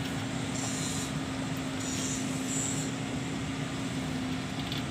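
A steady machine hum holding one constant low tone, over a broad even noise.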